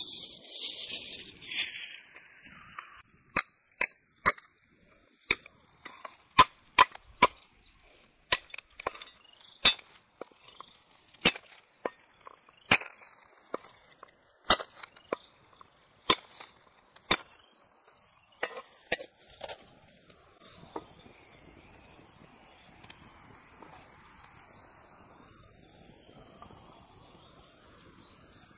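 Knife chopping on a wooden cutting board: about two dozen sharp, irregular strokes, roughly one to two a second, that stop a few seconds past the middle.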